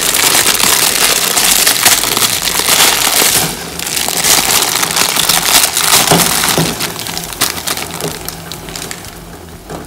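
Plastic instant-ramen packet crinkling and rustling as dry noodle blocks are shaken out of it into a pot of boiling water. The sound is loudest for the first three and a half seconds, then dies down.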